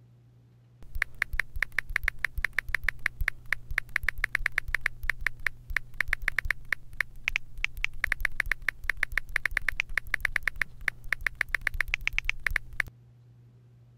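A rapid, even run of sharp clicks, about seven a second, starting about a second in and stopping abruptly shortly before the end, over a steady low hum.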